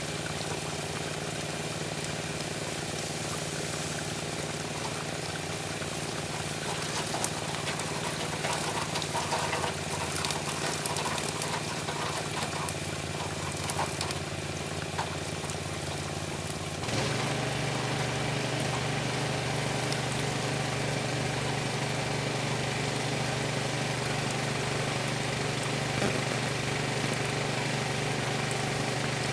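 Gas-engine pressure washer running steadily while its water jet sprays and spatters on the pavement. About two thirds of the way in, the spraying stops and the engine settles into a lower, louder steady run.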